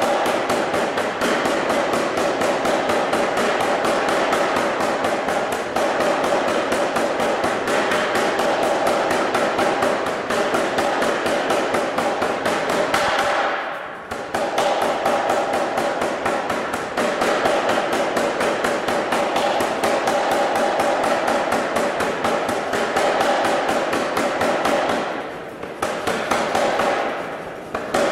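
Anyang 25 kg self-contained air power hammer striking hot steel in a rapid, steady series of blows. The blows ease off briefly about halfway through and twice near the end.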